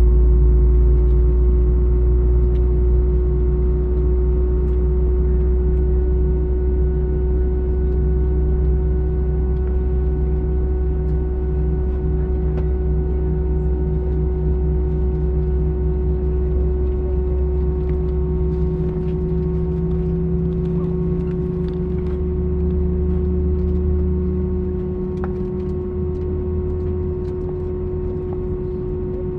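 Airbus airliner cabin during taxi: a steady low rumble from the jet engines under a constant hum, with faint small ticks and rattles. The rumble eases off a little about three-quarters of the way through, as the engines power down slightly.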